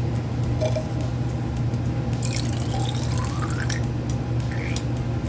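Fresh juice pouring from a funnel into small shot glasses, the pitch of the stream rising as each glass fills, twice. A steady low hum runs underneath.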